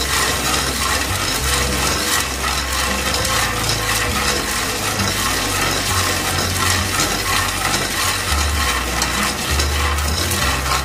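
Raw peanuts being dry-roasted in a pan without oil, stirred continuously so they rattle and scrape against the pan in a dense, steady stream of small clicks.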